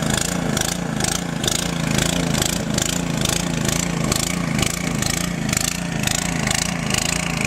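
Gas snowblower engine running steadily while clearing deep snow, its note wavering in a regular pulse.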